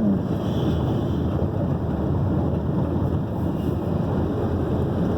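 Steady low rumble of road traffic mixed with wind noise on the microphone.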